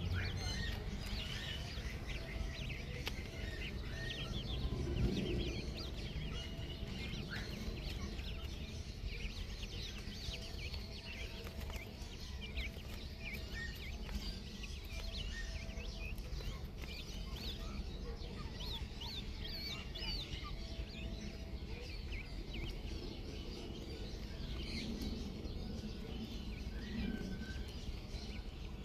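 A basketful of small chickens peeping continuously, many short, high chirps overlapping, some falling in pitch, over a low steady rumble.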